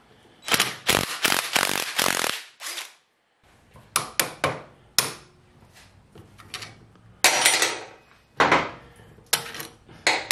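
Ratchet wrench clicking rapidly as a bolt is backed out of the tiller's transmission housing, followed by a series of separate sharp metal knocks and clatters as the bolt and parts are handled.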